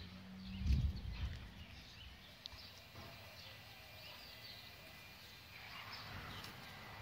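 Quiet backyard ambience with faint, scattered bird chirps and a low thump about a second in.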